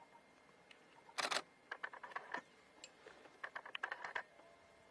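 Camera shutters clicking in short rapid runs, with a louder, longer burst about a second in and another run of clicks around three and a half seconds in.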